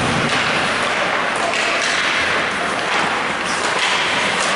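Ice hockey in play: a steady scrape of skate blades on the ice, with a few sharp clicks of sticks and puck and some voices in the rink.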